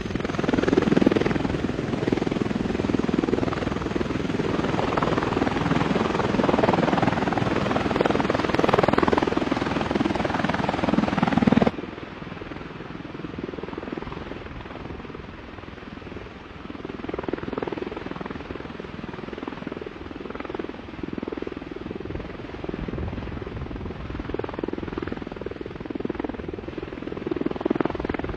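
V-22 Osprey tiltrotor's rotors and turboshaft engines running, a loud, steady rotor rumble. About 12 seconds in it cuts abruptly to a quieter recording of the same kind of rotor noise, rising and falling in level.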